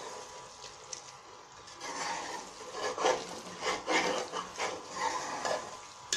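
Metal ladle stirring and scraping through thick, oily meat and bitter-gourd curry in an aluminium pot, in irregular strokes that come thickest in the middle, over a soft sizzle of the fried masala.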